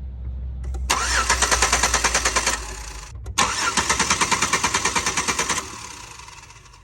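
Starter motor cranking the GM 3.8 L V6 of a Buick LeSabre in two bursts of about two seconds each, with a short pause between them. The engine turns over in even pulses but never fires: a crank-no-start, with no spark.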